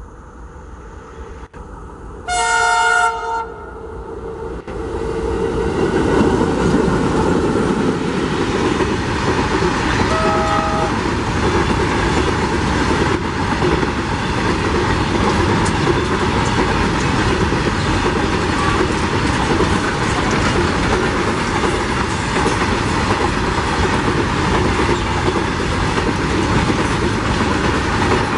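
Diesel freight train approaching and passing close by. The locomotive sounds its multi-tone horn for about a second, two seconds in, and again briefly around ten seconds in. The wagons then roll past in a steady rumble with the clickety-clack of their wheels on the rails.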